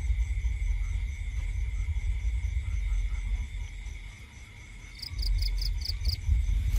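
Night insects, crickets among them, calling: a steady high trill with a faint pulsing chirp about four times a second, and a louder run of six quick chirps about five seconds in. A low rumble runs underneath, easing briefly just before the chirps.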